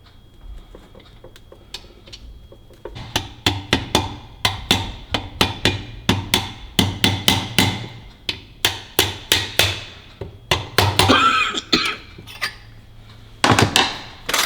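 Hammer striking metal parts of a rear differential, a run of sharp blows about two to three a second that starts about three seconds in, each with a brief metallic ring, and a longer ringing scrape near the end.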